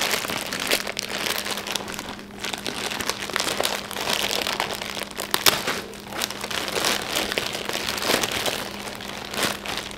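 Clear plastic packaging bag crinkling and rustling as hands work it open: a dense, irregular run of crackles.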